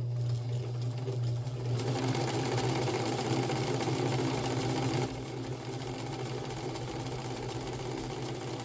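Hamilton sewing machine running under its electric motor on the foot pedal: a steady motor hum with the fast rattle of the needle mechanism. It speeds up about two seconds in and eases back a little about five seconds in, running well.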